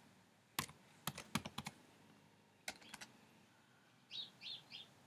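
Slow, scattered keystrokes on a computer keyboard, about eight separate key clicks in the first three seconds as a word is typed out letter by letter. Three short, faint high chirps follow near the end.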